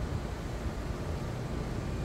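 Thunderstorm ambience at night: a steady low rumble with a faint hiss over it.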